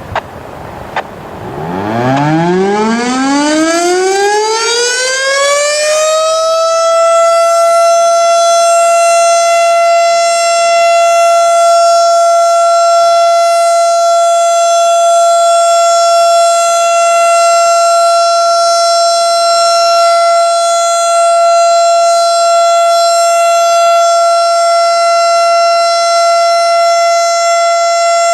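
Federal Signal STH-10 single-tone outdoor warning siren winding up: about two seconds in its pitch starts rising from very low and climbs for about five seconds, then it holds one steady, loud tone. This is the steady Alert signal of a routine monthly siren test.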